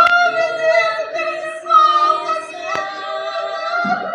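Music with a woman's voice singing long, high held notes.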